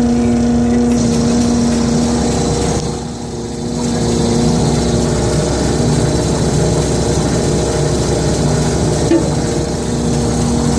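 Diesel engine of a Mack truck-mounted Bergkamp M2 paving unit running steadily with a constant mechanical hum, dipping briefly about three seconds in before picking up again.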